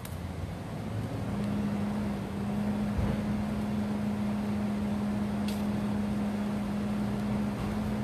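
A steady low mechanical hum, like a motor or engine running at an even speed, comes in about a second in and holds at one pitch, over a faint outdoor noise haze.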